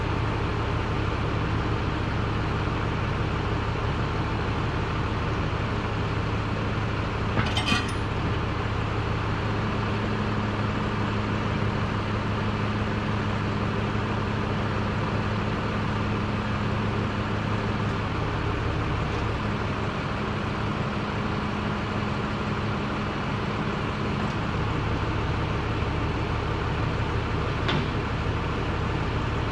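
Steady machine hum and rumble with a constant low drone, joined twice by a higher steady tone. A brief metallic clink comes about seven and a half seconds in.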